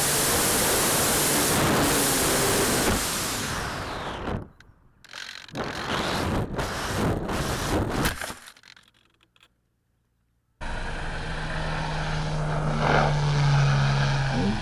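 Wind rushing past the onboard camera of a motorless RC foam warbird as it glides down, followed by a run of knocks and scrapes as it comes down on the ground. After a couple of seconds of silence, a steady hiss with a low hum.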